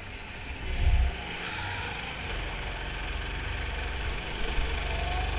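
Go-kart engine running, heard from on board the kart, with a loud low thump about a second in.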